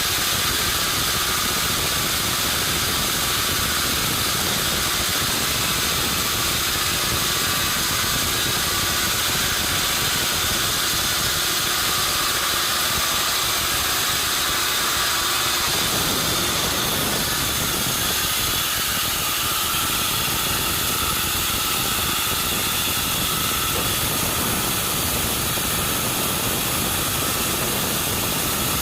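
Sawmill machinery running steadily: a loud, even, hissing machine noise whose lower tone shifts slightly about halfway through.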